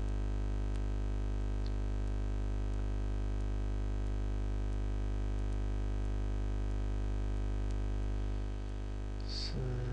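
Steady electrical hum with many evenly spaced overtones, picked up on the recording, with a few faint mouse clicks.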